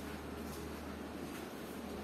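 Steady low mechanical hum with a hiss over it inside a stationary railway coach, with no distinct events.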